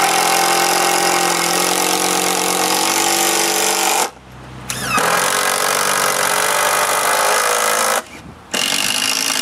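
Cordless drill driving screws into wood in three long runs, with short pauses about four and eight seconds in.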